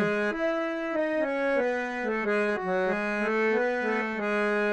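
Harmonium playing the tune of a Marathi gaulan alone, without voice: a melody of held reed notes moving up and down in steps.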